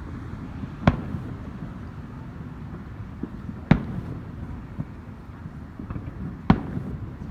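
Fireworks going off: three sharp bangs about three seconds apart, with a few fainter pops between them.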